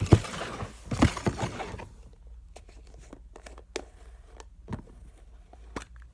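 A slime container and slime being handled: rustling and a few knocks for about two seconds, then scattered small sticky clicks and pops.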